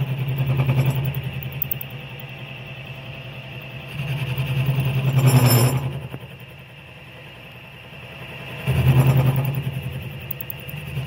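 Milling machine motor running with an end mill cutting a slot in thick steel plate: a steady hum that swells louder three times, with a brief harsh burst about five and a half seconds in.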